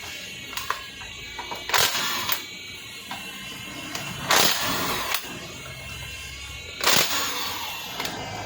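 Background music with about five short, loud bursts of noise from work on the bench.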